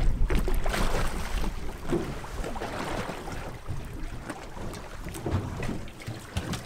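Wind buffeting the microphone, heaviest in the first second or so, over sea water sloshing beside a small boat, with scattered splashes and knocks as a gaffed crevalle jack is hauled over the gunwale onto the deck.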